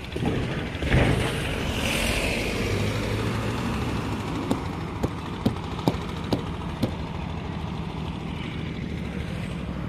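A pickup truck drives past close by about a second in, its engine and tyre noise swelling and then fading as it moves off down the road over a steady low engine hum. In the middle comes a run of six sharp ticks, about two a second.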